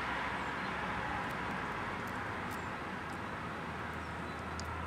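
Outdoor ambience: a steady hiss of distant noise with a few faint, short bird chirps.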